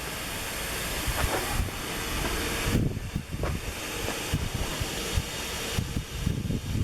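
Central vacuum sucking air through an insect trap's intake: a steady hiss that drops back about three seconds in, over an uneven low rumble.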